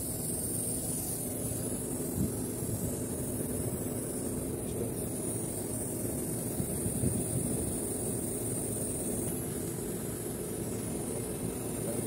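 Air-conditioning condensing unit running: a steady machine drone with a constant low hum and a hiss, with a couple of faint knocks.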